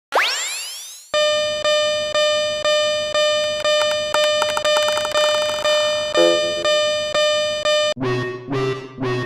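Synthesized level-crossing warning bell (fumikiri 'kan-kan') ringing at a steady pitch about twice a second, after a brief rising sweep at the start. Near the end it switches to a different, lower-pitched crossing bell beating a little faster.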